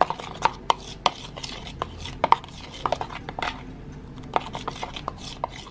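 A metal spoon stirring thick chocolate glaze in a small plastic bowl, with irregular clicks and scrapes as it knocks against the bowl's sides.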